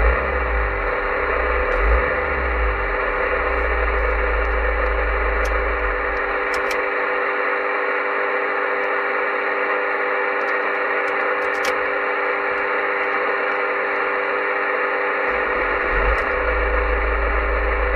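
CB radio hissing steadily with static, a dense band of noise with faint steady whistles running through it. A low rumble sits underneath and drops away for several seconds in the middle.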